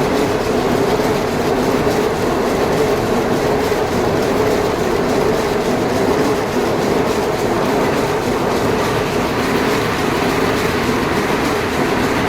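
A freshly repaired machine, its broken 'ghoda' part replaced, running steadily with an even, continuous mechanical noise that does not pause or change.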